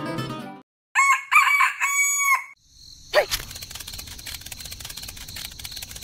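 A rooster crows once about a second in, the loudest sound here, just after guitar music cuts off. From about three seconds a steady mechanical whirr with a thin high whine starts with a click and runs on, like a small motor running.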